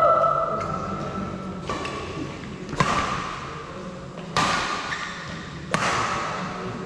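Badminton rackets striking the shuttlecock in a doubles rally: about five sharp hits, roughly one every second and a half, each echoing and fading in the hall.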